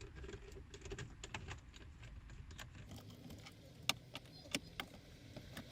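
Scattered small clicks and taps of a screwdriver working on the screws that hold a car's instrument cluster, with two sharper clicks in the second half.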